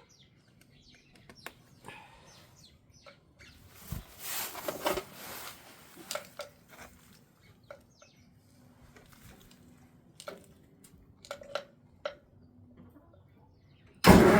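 Scattered small clicks and knocks of hand tools and parts being handled. Near the end the Farmall 400's engine suddenly starts cranking on the starter, which is loud, while its spark plugs are being checked for spark.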